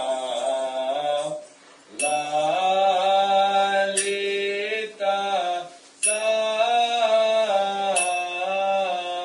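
Sung Buddhist chant of a Nepalese charya song, a voice holding long notes in a slow melody with two short breaks for breath, marked by a bright ringing metal strike about every two seconds.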